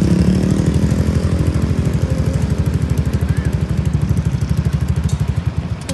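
Vehicle engine running with a rapid, even pulsing, gradually getting quieter.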